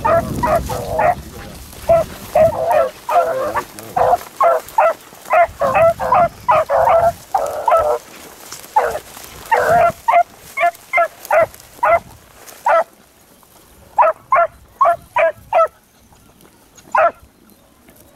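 Beagles baying in quick, short barks, the hounds giving tongue as they run a rabbit's scent trail. The barking comes thick and fast, then thins to scattered barks and a last single bark near the end.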